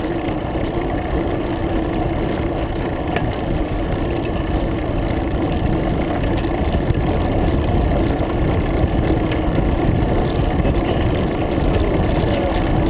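Steady low rumble of road and wind noise picked up by a camera mounted on a road bike as it rides up a climb, with a faint steady hum over it.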